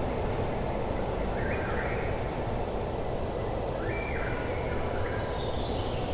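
Steady background noise with short bird calls about two, four and five seconds in.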